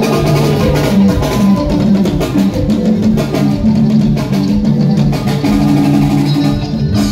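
Band music with guitar, bass and drum kit playing a steady groove; it breaks off near the end.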